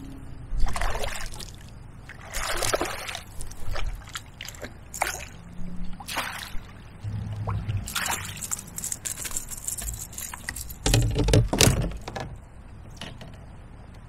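Water splashing and sloshing in irregular bursts as a small smallmouth bass thrashes at the surface on the line beside a kayak and is scooped up in a landing net. The loudest splashes come about half a second in and again about three quarters of the way through.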